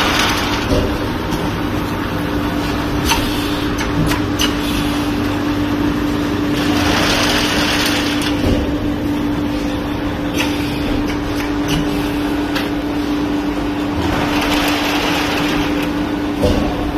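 Factory production machinery running: a steady hum, a hiss that swells about every seven to eight seconds, and scattered sharp clicks.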